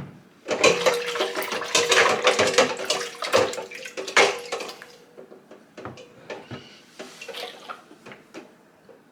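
Water splashing and sloshing in a plastic container of soapy vinegar water as humidifier parts are washed, for about four seconds. Then quieter knocks and clicks of plastic parts being handled.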